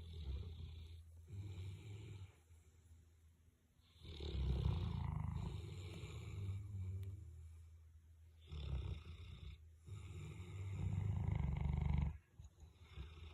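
A Boerboel, a large mastiff-type dog, snoring while asleep: long, low snores a few seconds apart, the loudest starting about four seconds in and near the end.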